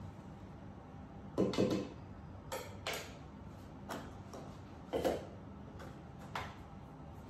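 Kitchenware clattering as a plastic container and a spoon are handled and set down on the worktop: a handful of short knocks and clinks, the loudest about a second and a half in and again about five seconds in.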